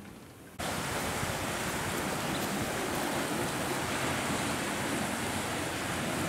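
Steady rush of sea surf washing over a shallow rocky reef and shore, mixed with wind, starting suddenly about half a second in.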